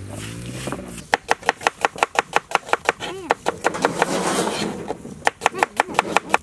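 Cinnamon bark being cracked with a stone roller on a flat grinding stone: rapid, even knocks, about six a second, in two runs with a pause between them.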